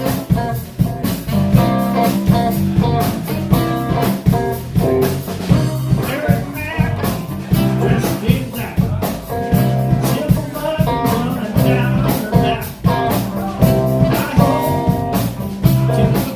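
Live blues band playing with electric guitar, bass and drum kit keeping a steady beat.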